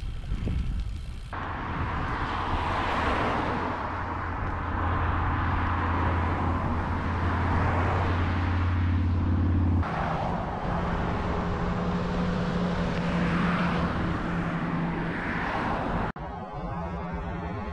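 Road traffic: motor vehicles passing with a steady engine hum under a wash of road noise. The hum drops out and changes pitch abruptly about ten seconds in.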